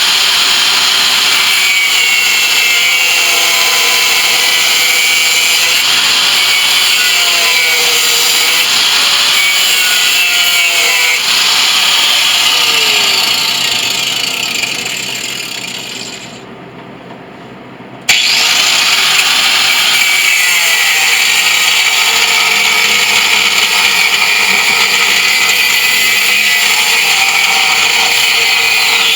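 Angle grinder running with a steady high whine; a little under halfway through it winds down over a few seconds, stops for about two seconds, then starts up again suddenly and keeps running.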